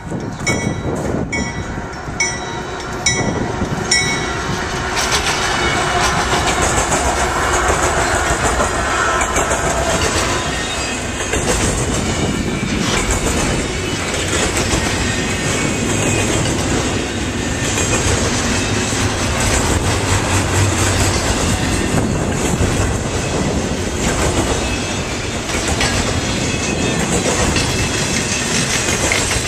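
Grade-crossing bell dinging over the approaching diesel locomotive for the first few seconds, then a double-stack intermodal freight train rolls through, wheels clicking and rumbling steadily over the rail joints.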